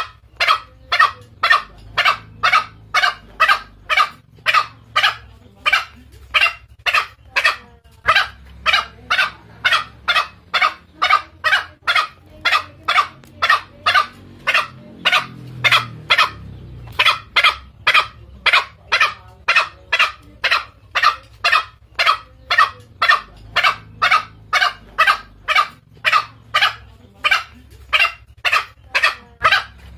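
Green junglefowl calls from a hunting-lure recording meant to draw in males. Short, sharp calls repeat about twice a second, with a break of about two seconds halfway through.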